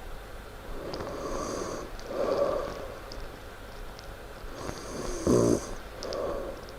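A sleeping person snoring, with slow, noisy breaths. About five seconds in comes a short, loud, rattling snore.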